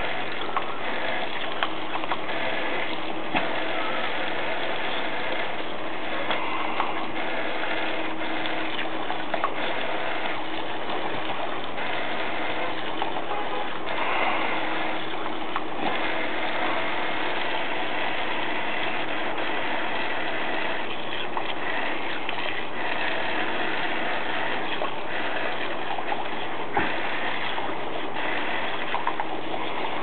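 Steady hiss and splatter of a garden hose's water stream spraying onto grass and onto a dog biting at it, with a few brief clicks.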